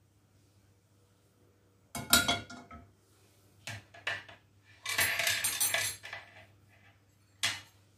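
Kitchen pan and utensils clattering: a sharp metal clank about two seconds in as the non-stick pan is set down on the gas hob's grate, then a few lighter knocks and about a second of rattling clatter, with one more knock near the end.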